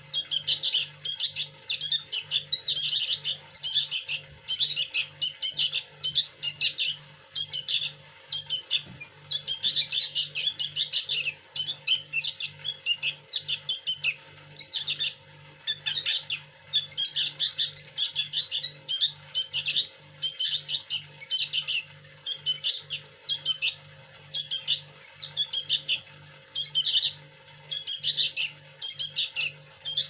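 Sooty-headed bulbul (kutilang) fledglings calling in rapid, high-pitched chirps, bunched into repeated bursts with short gaps; the begging calls of hand-reared chicks waiting to be fed.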